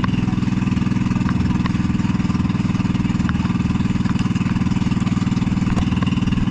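Motorized fishing boat's engine running steadily at constant speed, with a fast, even pulse.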